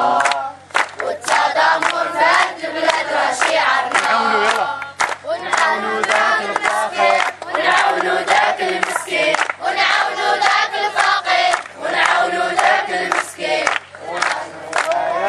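A group of children singing a scout chant loudly in unison, phrase after phrase, with hand claps keeping time.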